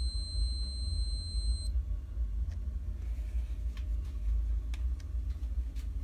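Suaoki handheld wall scanner giving one steady high-pitched beep over a wooden stud, which stops about two seconds in. A few faint clicks follow over a steady low rumble.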